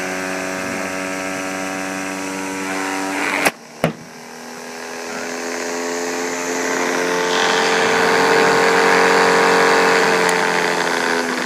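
Heater Basehit pitching machine's electric motor and throwing wheel whirring steadily. A bit over three seconds in, two sharp knocks about half a second apart; the whir then drops away and slowly builds back up to a steady hum.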